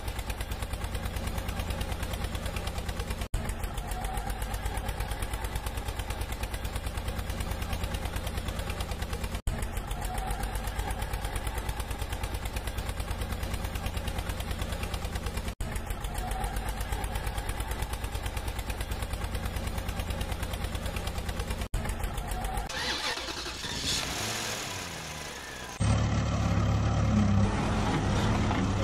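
Engine sound effect: a rapid, steady putter with a low hum, repeating in loops of about six seconds with a brief cut between them. Near the end a short sweeping sound leads into a louder, deeper truck-engine sound running steadily.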